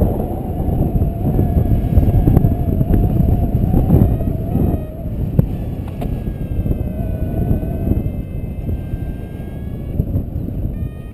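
Wind rushing over an action camera's microphone during a paraglider flight: a loud, gusting rumble that swells around two and four seconds in.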